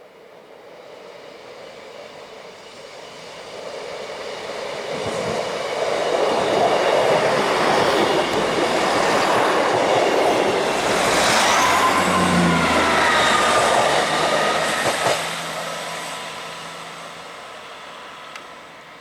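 A train approaching and running past the line-side, growing louder for several seconds, staying loud for about ten, then fading away. A high whine is heard as it passes.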